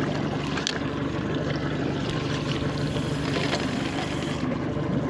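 Mercury outboard motor idling steadily, with a low even hum under a haze of wind and water noise.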